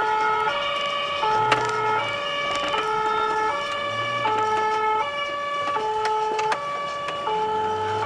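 Two-tone emergency-vehicle siren on a fire brigade officer's car running with blue lights, alternating steadily between a low and a higher note, each held about 0.7 s.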